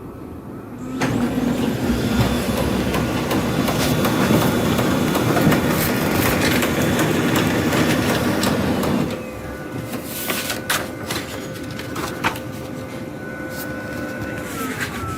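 Brother laser printer running a print cycle: a loud stretch of motor and paper-feed noise for about eight seconds, then a quieter steady whine with scattered clicks.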